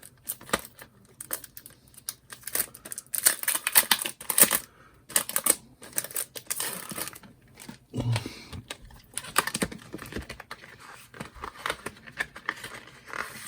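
Packaging crinkling and rustling as it is handled and opened, a run of irregular crackles that is loudest in the middle.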